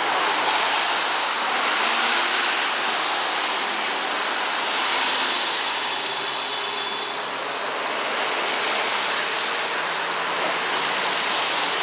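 Steady roar of passing highway traffic, the rushing sound swelling and easing gently every few seconds as vehicles go by.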